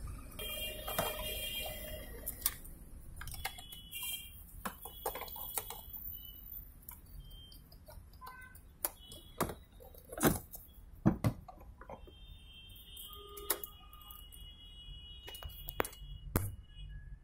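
Plastic clicks and knocks of a Toyota Innova instrument cluster being handled and fitted back into the dashboard, the loudest knocks about ten and eleven seconds in. Faint high tones come and go.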